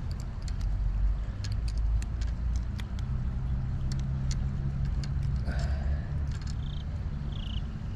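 Steady low rumble with scattered sharp clicks: handling noise as pliers work a fishing hook out of a bass's mouth. Two short high chirps come near the end.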